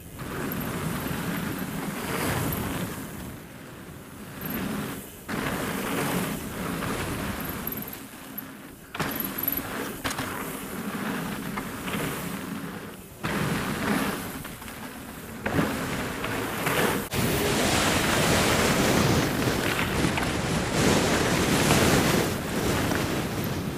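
Wind rushing over the camera microphone, mixed with mountain-bike tyres rolling fast over a wooden boardwalk and then gravel. The noise drops out sharply for a moment several times and is loudest in the last third.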